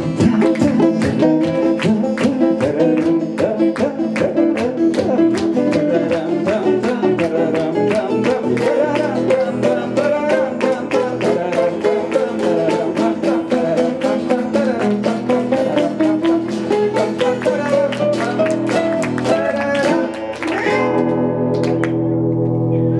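Two guitars playing the instrumental ending of a song: a busy picked lead line over the chords, which settles about twenty seconds in onto a final chord left ringing.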